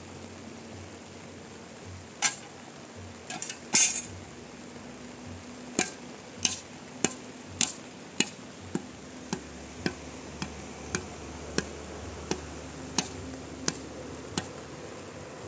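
Sharp knocks of a long wooden-handled shovel being struck: a few irregular knocks first, then a steady run of about fifteen, one every half second or so, growing slightly softer toward the end.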